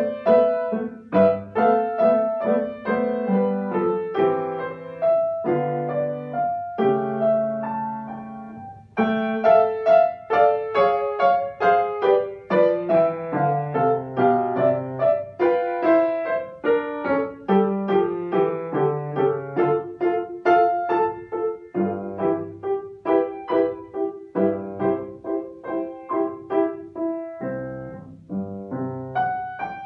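Grand piano played solo, a classical piece in a steady flow of notes with a brief pause about eight seconds in.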